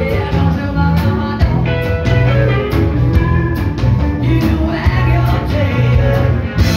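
Live blues-rock band playing loud: a woman singing, with electric guitar, electric bass and a drum kit. The band stops together on a final hit near the end.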